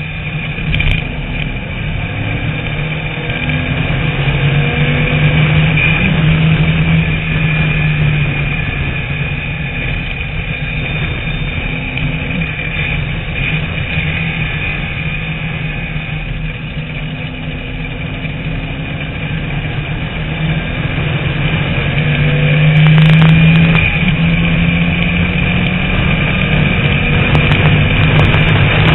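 TVR Tuscan Challenge race car's engine running hard at racing speed, heard from a camera mounted on the car. The note rises and falls with throttle and gear changes through the corners, loudest about six seconds in and again around twenty-three seconds.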